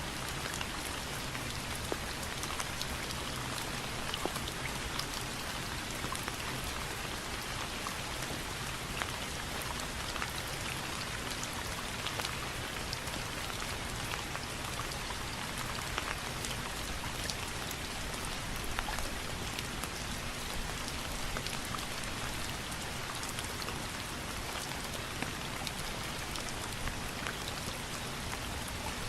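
Steady rain falling, with many fine drop ticks pattering on a surface and no thunder.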